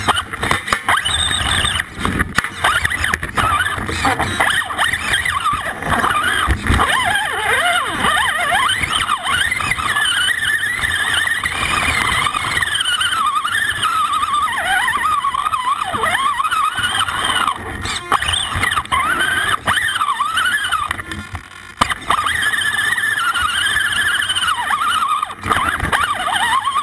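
Axial AX10 RC rock crawler's electric motor and gear train whining close to the frame-mounted camera, rising and falling in pitch as the throttle changes, with knocks and scrapes of the tyres and chassis against rock.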